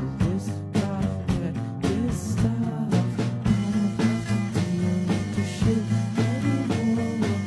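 Music: an upbeat song with a steady drum beat.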